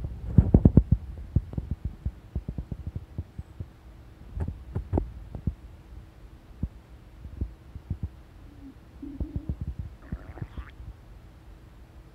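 A person's stomach gurgling during digestion: irregular low pops and rumbles, with a short squeaky gurgle about eight to nine seconds in.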